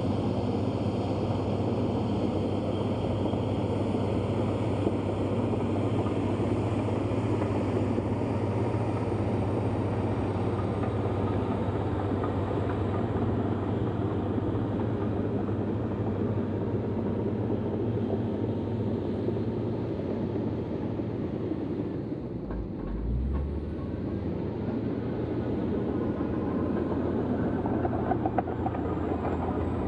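Komatsu D155A bulldozer's diesel engine running steadily, with a brief dip and change in its low note about three-quarters of the way through.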